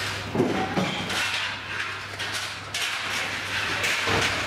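Metal clanking and knocking from a funfair ride being dismantled, over a steady low hum.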